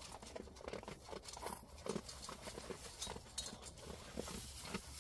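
A dog eating: irregular chewing and crunching clicks, close to the microphone.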